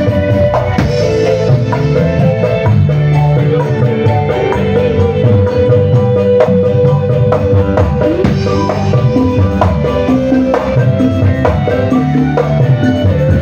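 Dangdut koplo band playing live, with kendang hand-drum strokes over bass and a held melody line.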